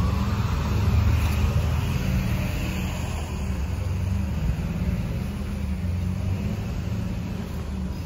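Car running along a road: a steady low engine and road rumble, with a faint rising whine in the first few seconds.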